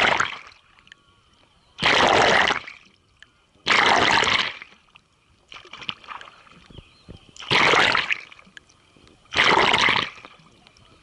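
Kayak paddle strokes splashing through river water, a loud splash about every two seconds as each blade dips and pulls, with one much weaker stroke around the middle.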